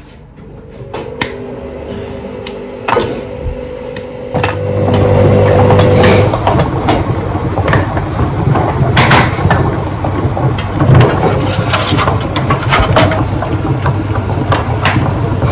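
Kitchen clatter: repeated sharp knocks and clicks as bowls and metal baking trays are handled, over a steady motor-like hum that grows much louder about four seconds in.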